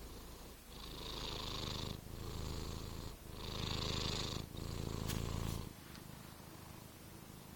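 Sleeping domestic cat snoring: a rasping, purr-like rumble on each breath in and out, two full breaths, then it settles to soft breathing about three-quarters of the way in.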